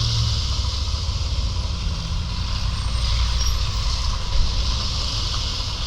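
Steady road traffic noise: tyre hiss from vehicles on a wet, snowy road over a low engine rumble.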